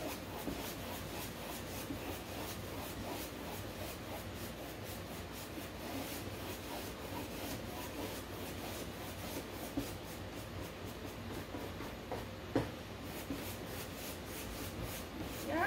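A flat paintbrush is stroked back and forth across a canvas board, its bristles scratching and rubbing through wet acrylic paint. There is a sharp tick about twelve seconds in, and a cat gives a short rising meow at the very end.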